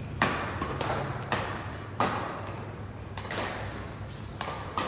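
Badminton rackets striking a shuttlecock in a fast doubles rally: a series of sharp pings, about half a second to a second apart, each ringing briefly in the hall's echo.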